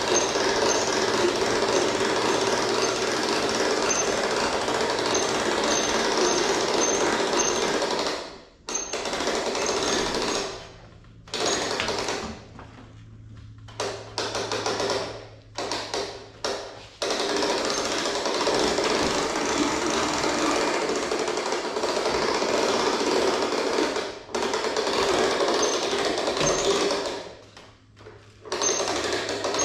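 Truck camper jacks being run under power to raise the camper: a steady, rapid, rattling machine sound with a low hum under it. It runs in long stretches and stops briefly several times, most often in the middle third.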